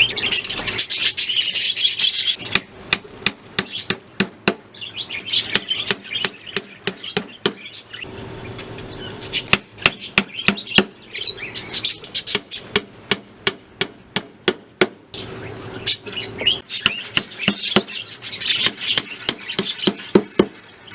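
Budgerigars chirping and chattering, loudest at the start and again near the end, over a long run of sharp taps and clicks.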